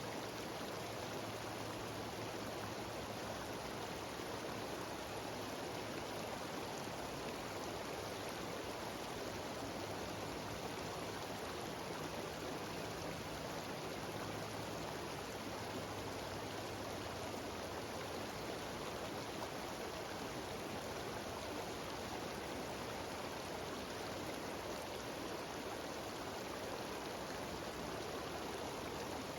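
Mountain stream cascading down a series of small waterfalls: a steady, even rush of water.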